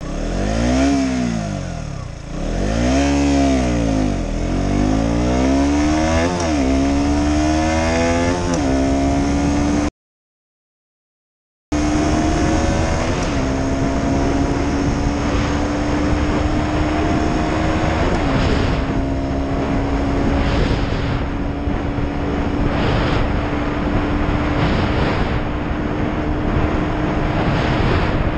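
KTM Duke 125's 125cc liquid-cooled single-cylinder engine accelerating hard at full throttle. The revs climb and drop back several times as it shifts up through the lower gears. After a short gap the engine pulls steadily in a higher gear, its pitch rising slowly with a couple of brief dips at the shifts.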